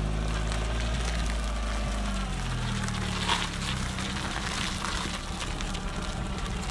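Lowered VW Passat B3 on the move, heard from beside its front wheel: steady engine drone under tyre and wind noise. The engine note shifts about two seconds in, and there is a brief sharp noise about three seconds in.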